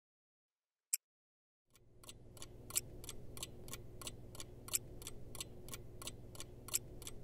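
Mechanical clock ticking: one lone tick about a second in, then steady ticking from about two seconds in, roughly three ticks a second with a louder tick about every two seconds, over a faint steady low hum.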